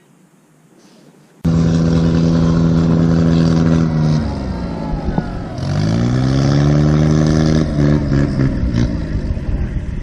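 An engine cuts in suddenly about a second and a half in and runs loudly at a steady pitch, then slows near the middle and revs back up, wavering toward the end.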